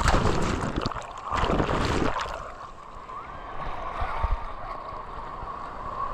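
Sea surf and wind at a beach: two loud rushes of noise in the first two seconds, then a quieter steady wash.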